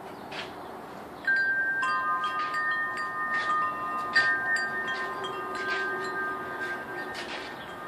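Metal tube wind chime ringing: several tubes sound together about a second in and are struck again around four seconds, the tones holding and slowly fading.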